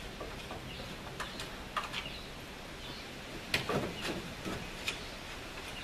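A few scattered clicks and knocks, the sharpest about three and a half seconds in, as the Datsun 280Z's air filter duct is worked loose by hand. A steady low hiss sits underneath.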